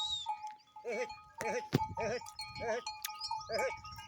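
Goats bleating: about four short, wavering calls in quick succession. A steady ringing tone runs underneath.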